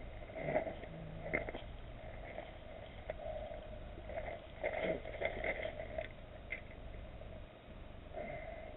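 Steady low rumble and hiss, with scattered clicks and crunches of river gravel as a freshly landed mullet is handled on the stones.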